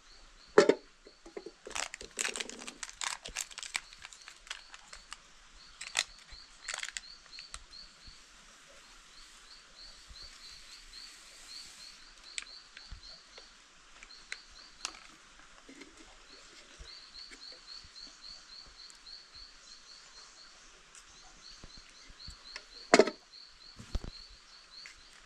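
Sharp knocks and a patter of clicks from something being handled, the loudest about half a second in and near the end. Behind them a high chirping trill of rapid, evenly repeated chirps comes and goes.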